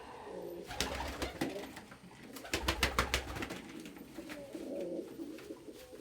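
Domestic pigeons cooing in a loft, with two flurries of rapid clattering about a second in and again around the middle.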